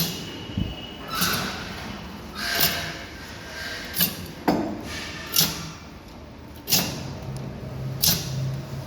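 Hydraulic pallet truck being worked in a test after a wheel change: a string of short clattering knocks and rushing noises, roughly one every second. A low steady hum joins near the end.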